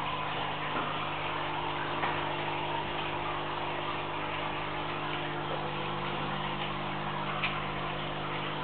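Steady room hum and hiss, with a few faint clicks, one about two seconds in and one near the end.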